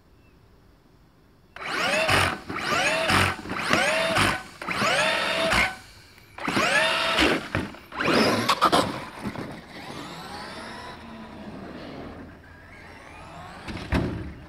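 Traxxas X-Maxx RC monster truck's brushless electric motor whining in a series of short throttle bursts, each rising and falling in pitch, while the upturned truck is rocked back onto its wheels. It then drives off with a steadier whine that fades, and a short knock comes near the end.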